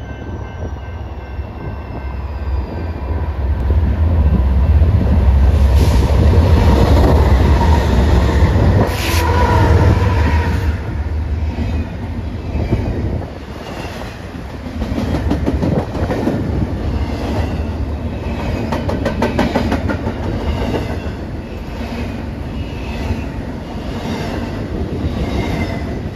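BNSF diesel locomotives pass close by with a heavy, low engine rumble that builds to its loudest. Double-stack intermodal container cars then roll past, their wheels clacking in a steady rhythm over the rail joints.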